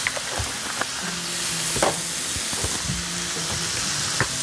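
Strips of spruce grouse breast sizzling in oil on a hot electric griddle: a steady hiss with a few sharp pops.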